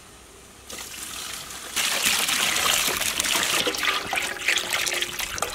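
Milk pouring in a steady stream into a large pot of hot butter and spices, starting about two seconds in.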